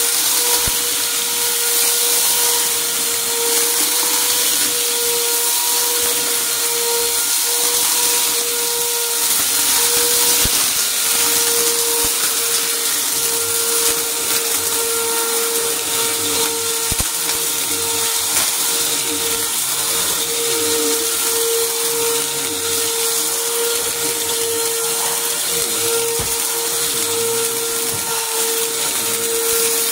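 Upright vacuum cleaner running steadily over carpet with a constant whine, picking up debris with a few sharp crunches now and then.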